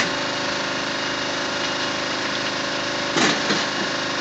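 Steady running noise from rail-welding preheating, with a gas burner heating a rail joint to red heat; the noise holds a steady engine-like tone. A brief louder sound comes about three seconds in.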